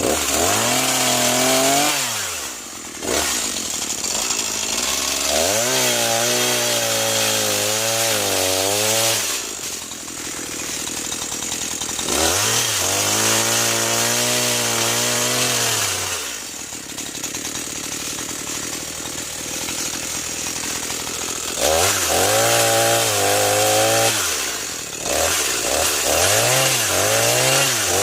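New Echo CS-490 two-stroke chainsaw revved up to high speed and back down to idle several times, each burst held for a few seconds, with a few quick short blips of the throttle near the end.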